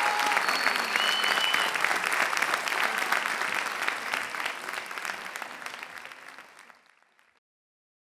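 Concert audience applauding, with a couple of short high whistles about a second in; the applause fades away and cuts to silence about seven seconds in.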